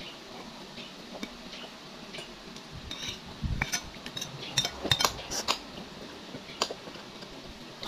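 Metal spoon clinking and scraping against a glass bowl while scooping food: a scatter of light clicks, most of them in the middle seconds.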